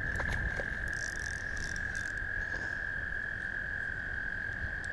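A chorus of toads trilling, one continuous high-pitched trill held steady throughout.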